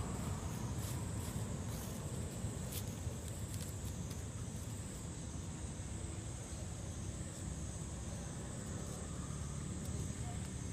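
Outdoor ambience: a steady high-pitched drone of insects over a constant low rumble, with a few faint clicks.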